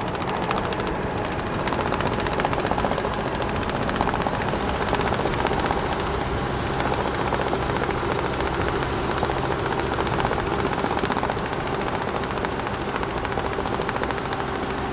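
Straps on a large truck flapping fast in the wind as it drives, a steady rapid flutter over the drone of the truck's engine.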